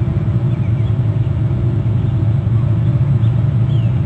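Steady low rumble, with a few faint high falling chirps near the end.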